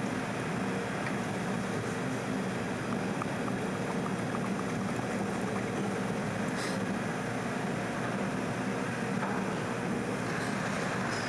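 Steady low hum and hiss throughout, with faint ratchet clicks a few seconds in as the water pump's 10 mm bolts are turned out, and a couple of brief light scrapes later on.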